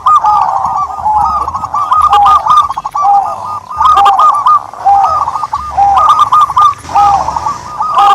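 Turtle doves cooing, many short arching coos overlapping one another as several birds call at once.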